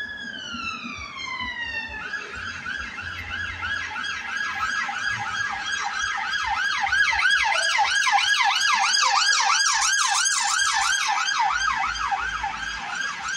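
A British police car's siren: a slow falling wail that switches about two seconds in to a fast repeating yelp. It grows louder as the car approaches and passes, then eases off near the end.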